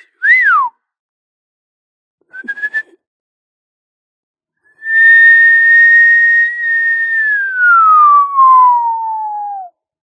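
Mouth whistling: a quick whistle that swoops up and down, a short rising chirp in a few quick pulses about two and a half seconds in, then a long whistle starting about five seconds in, held on one note and then sliding steadily down in pitch before it stops.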